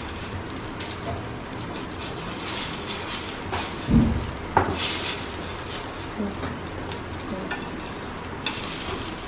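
Onion-stuffed paratha sizzling in oil on a flat tawa griddle, with a steel spoon scraping and clicking against the griddle as the oil is spread. There is a dull knock about four seconds in, and the spoon clatters near the end as the paratha is turned over.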